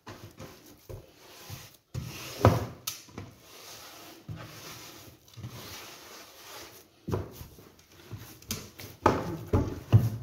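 Hands kneading and pressing semolina dough in a wooden bowl: irregular rubbing and scraping of dough and palms on the wood, with a few dull knocks as the dough is pressed down.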